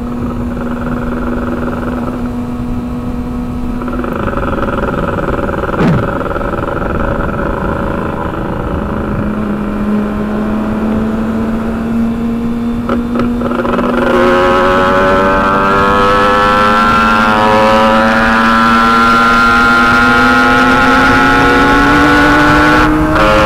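Motorcycle engines running at a steady cruising speed with wind rush. About fourteen seconds in, a louder engine note comes in and climbs slowly in pitch as the bike accelerates, with a brief break near the end.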